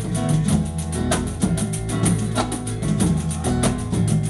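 Live band playing with acoustic guitar and hand drums: a steady, busy percussion rhythm over strummed chords and a bass line.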